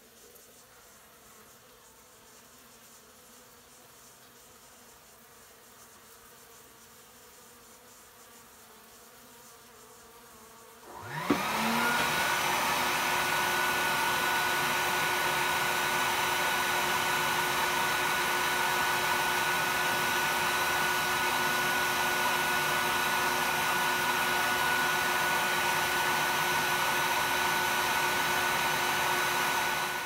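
Faint hum of honey bees, then about eleven seconds in a bee vacuum's motor starts, winds up in pitch and runs with a steady whine, cutting off at the very end.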